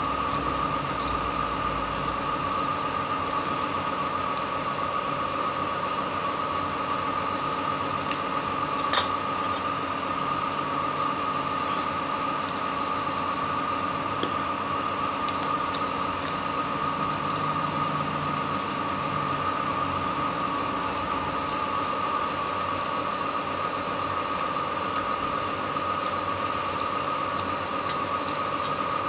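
Steady machine hum with a constant high-pitched tone over it, and a single sharp click about nine seconds in.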